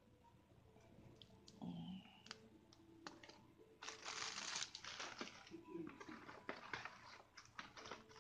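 Paper cards and a cellophane bag handled by hand: soft rustling and crinkling with scattered small clicks. The loudest stretch is a short rustle about four seconds in.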